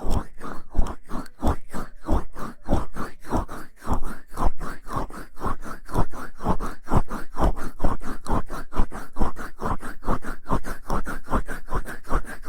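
Hands massaging and rubbing against an ASMR microphone: quick, even strokes, about four a second, each a short scratchy rub with a soft thump.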